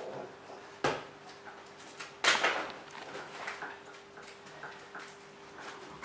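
Hands working inside a cardboard box: packaging rustles and small ticks, with two sharp knocks, the louder one about two seconds in. A faint steady hum runs underneath.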